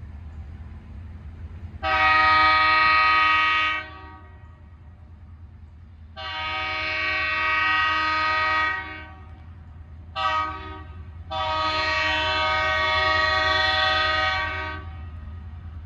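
Diesel locomotive air horn sounding the grade-crossing signal, a chord of several tones in two long blasts, one short and a final long one: the train is nearing a road crossing. A steady low rumble runs underneath.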